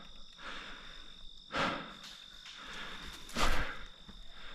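Insects keep up a steady high-pitched sound outdoors. Two short rushes of noise come about one and a half seconds in and again about three and a half seconds in.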